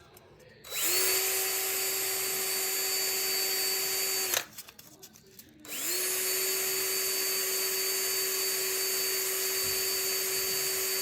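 Electric drill spinning a small plastic piece held in its chuck to shape it into a model exhaust pipe. It runs twice at a steady speed, spinning up quickly each time, with a short pause of about a second between the runs.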